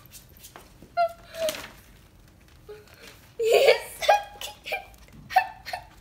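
A young girl giggling and crying with excitement in short, separate bursts, with quiet gaps between them.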